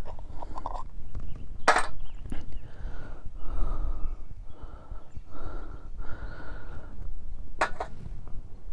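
A jar of bait eggs being opened, with a sharp click from the lid about two seconds in and another click near the end. In between comes a run of about five short breathy hisses, over a low rumble.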